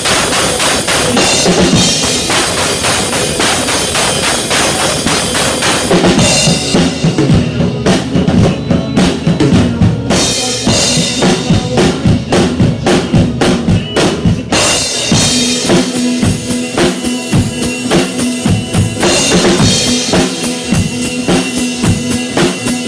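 Country band playing an instrumental passage without vocals, with a drum kit keeping a steady beat under the other instruments.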